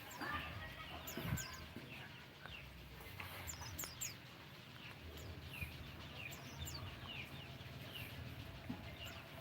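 White-eyes (pleci) chirping in their aviary: a run of short, high, downward-sweeping chirps repeated every half second or so.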